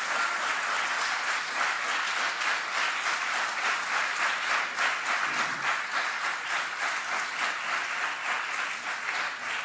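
Council chamber audience applauding: steady clapping of many hands that holds at an even level throughout.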